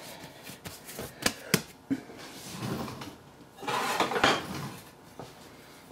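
Kitchen handling sounds at a wooden bread board: a few light knocks and taps as a ball of dough is worked, then a short clattering rustle about four seconds in, the loudest moment.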